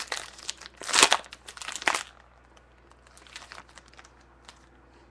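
Trading-card pack wrapper being torn open and crinkled. The crackling is loudest in the first two seconds, peaking about a second in, then a few faint rustles follow as the cards come out.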